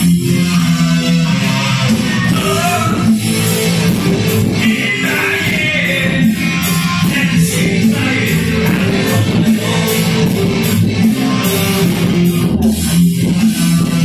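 Live rock band performing: a man singing into a microphone over electric guitar and keyboard, with a steady beat.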